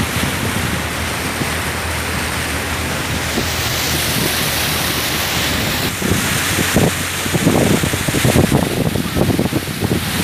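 Wind rushing and buffeting on the microphone of a moving vehicle, over a steady low hum; the buffeting gets heavier from about six seconds in.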